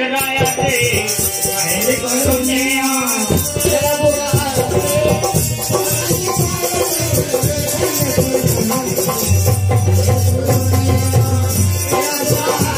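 Live folk music with a man singing into a microphone over hand drums and jingling rattles. The singing is clearest in the first few seconds, then the percussion carries on with a steady low tone underneath toward the end.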